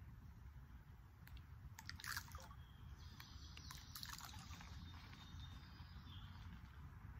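Faint scattered patter of corn kernels landing on the water, in two bursts about two seconds in and again around three to four seconds, as handfuls are thrown to chum for carp, over a low steady rumble.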